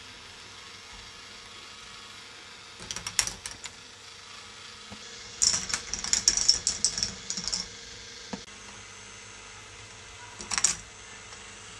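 K'nex ball machine: plastic balls clattering and clicking through the tracks in three spells, about three seconds in, a longer run around six to seven seconds, and briefly near the end, over the steady hum of the motor driving its lifts.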